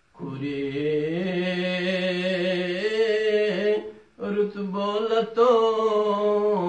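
A man's voice singing a Balti qasida unaccompanied: one long held, wavering note, a brief break about four seconds in, then further sung phrases.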